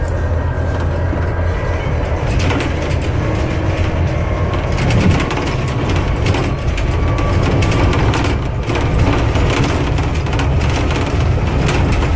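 Scania Citywide CN280UB CNG city bus under way, heard from inside the cabin: a steady low engine and road drone with frequent sharp rattles and knocks from the body and fittings.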